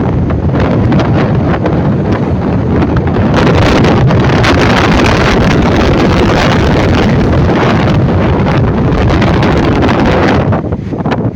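Strong wind blowing across the microphone aboard a ferry at sea: a loud, steady rushing that eases a little near the end.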